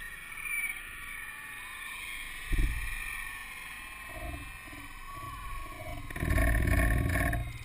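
Crowd of spectators cheering and shouting after a goal, many high voices at once, dying down after a few seconds. A low thump on the microphone about two and a half seconds in, and a louder low rumble on the microphone near the end.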